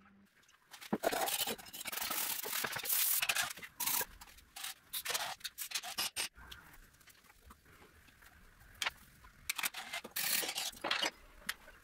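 Steel hand tools scraping and picking at rust-encrusted parts of an antique Singer sewing machine: close-up scraping for a few seconds from about a second in, then scattered short scrapes and clicks.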